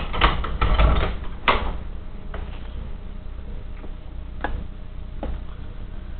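Rustling and knocks, then a sharp click about a second and a half in as the pull chain of a porcelain lamp-holder switch is tugged, followed by a few fainter clicks.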